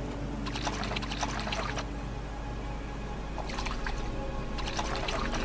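Music plays under two bouts of splashing in shallow water, the first about half a second in and the second about three and a half seconds in: an animal bathing or drinking at a forest pool.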